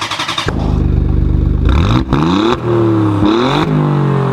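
Small 50cc two-stroke pocket bike engine catching about half a second in, then blipped on the throttle three times, its pitch rising and falling back each time before sinking slowly toward idle.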